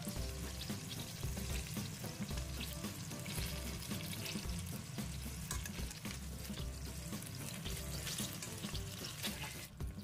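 Netted pork roast sizzling and crackling in its fat in a stainless steel pot on low heat as it is uncovered and turned with metal tongs, with background music underneath.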